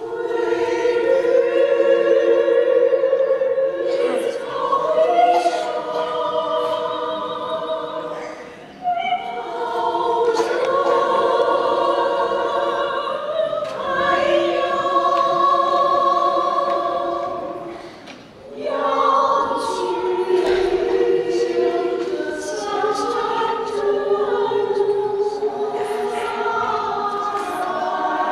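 Small women's choir of about ten voices singing a cappella in parts. The singing comes in at the start and pauses briefly between phrases, about nine and eighteen seconds in.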